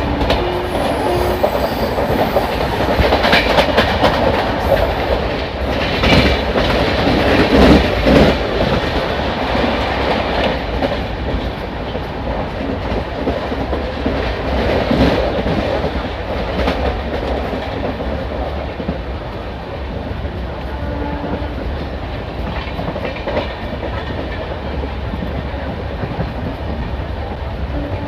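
Train running on the rails: a steady rumble with wheels clattering over rail joints, the clatter loudest in the first eight seconds or so, then settling to an even rumble.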